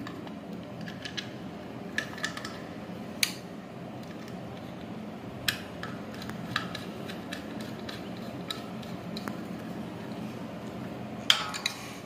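Screwdriver driving a small screw into the controller bracket on a ceiling fan's metal housing: scattered sharp metallic clicks and clinks every second or two, a few close together near the end, over quiet room tone.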